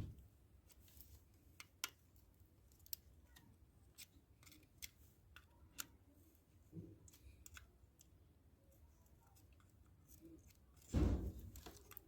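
Scattered small sharp clicks and snips of hand tools being handled while working on a CRT television's circuit board, with a dull knock about seven seconds in and a louder knock near the end.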